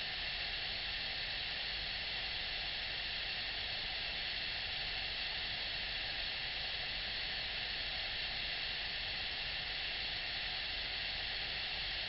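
Waterfall: water cascading down a smooth rock chute into a pool, a steady, unchanging rush with a hissy edge.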